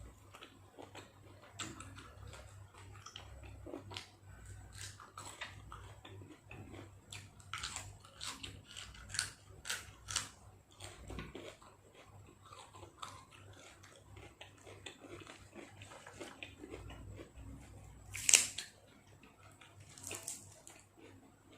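A person chewing and biting food, a Thai grilled-beef salad with raw vegetables. Irregular crisp clicks and mouth smacks, with one louder click about eighteen seconds in.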